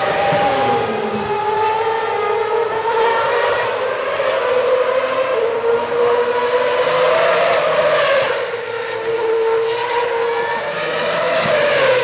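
2010 Formula One car engines, 2.4-litre naturally aspirated V8s, running at very high revs on the circuit, their high-pitched note rising and falling repeatedly through acceleration and gear changes.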